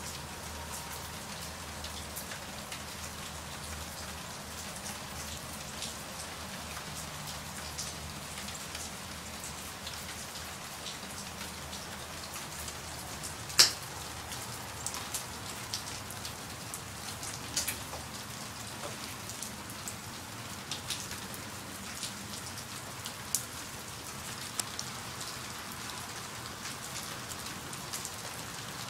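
Steady light-to-medium rain falling, a continuous hiss with scattered sharper drop impacts, one louder drip about halfway through.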